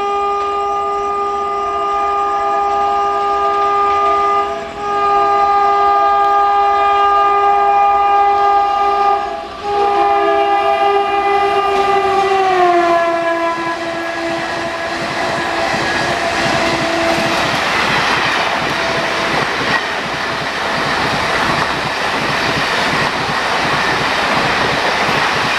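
WAP-4 electric locomotive's horn sounding three long blasts as the express approaches at speed, the pitch dropping as the locomotive passes. The horn fades and gives way to the rush and wheel clatter of the coaches going by at high speed.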